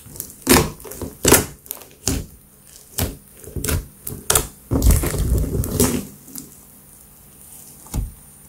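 Thick beaded slime being poked and pressed with fingertips, giving sharp wet clicks and pops about once a second, a dense run of crackling a little past halfway, and one last pop near the end.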